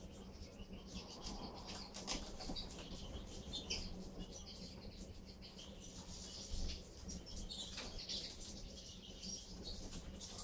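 A flock of European goldfinches twittering and chirping while feeding, with short high calls scattered throughout and occasional wing flutters and clicks as birds move between perches.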